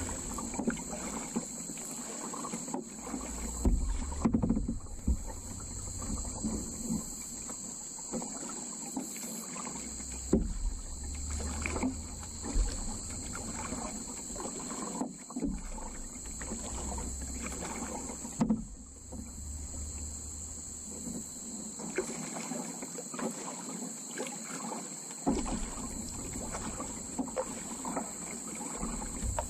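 Kayak being paddled on calm water: irregular paddle splashes, drips and occasional knocks against the hull, over a steady high insect drone and low wind rumble on the microphone.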